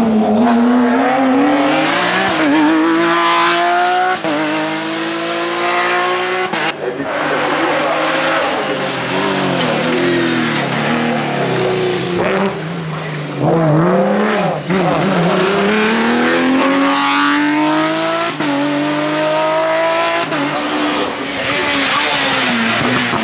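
Hill-climb race car engines, one car after another, a Porsche 911 first: each revs up hard through the gears with short breaks at the shifts, drops away under braking and downshifts for the hairpin, then rises again as it accelerates out.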